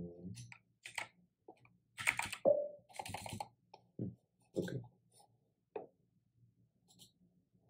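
Computer keyboard keys and mouse buttons clicked in short, irregular taps, a few at a time.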